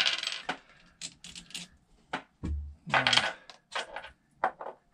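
Small metal hardware being handled: bolts and washers clinking and clicking against each other and the tools, with a rattling clatter at the start and a dull bump about halfway.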